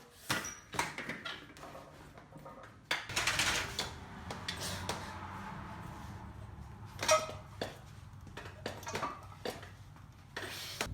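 Weights clanking and knocking as they are handled and lifted, in scattered sharp metallic clinks and thuds with one louder knock about seven seconds in. A steady background hiss comes in about three seconds in.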